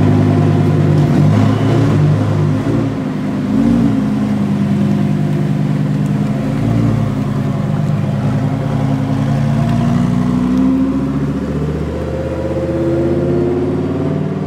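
Lamborghini Huracán Performante's naturally aspirated V10, on its stock exhaust, running at low speed on light throttle. The engine note rises and falls, climbing again near the end.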